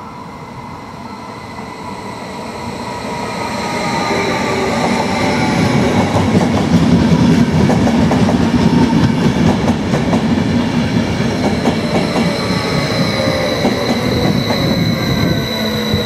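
Stadler KISS double-deck electric train (SBB RABe 511) running in past the platform, getting louder as it approaches. Its wheels clatter and rumble over the track, with a steady high whine and a lower whine that slowly falls in pitch.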